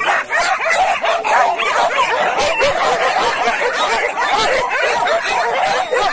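A pack of hunting dogs for wild boar hunting yelping, whining and barking over one another without a pause, many voices at once.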